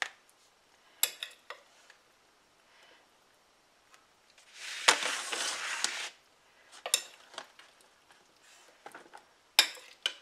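A metal serving spoon clinks and scrapes against a glass baking dish and plastic containers as cooked squash and apple cubes are scooped out, in scattered sharp clicks. About halfway through comes a louder scrape lasting under two seconds.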